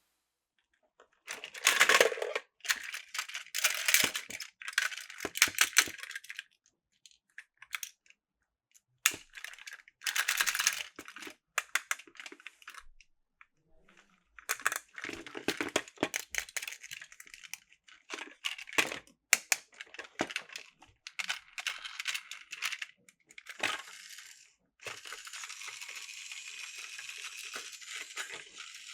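Plastic toy-train pieces and packaging being handled: clicks, rattles and crinkling in bursts with silent gaps between. About 25 seconds in, a steady even whir or hiss sets in.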